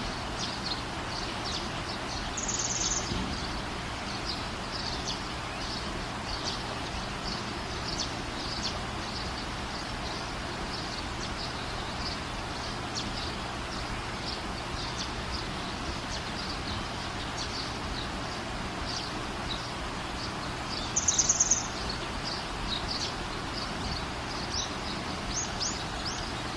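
Steady rain hiss with birds chirping throughout. Two louder, quick trilling bird calls stand out, a couple of seconds in and about three quarters of the way through.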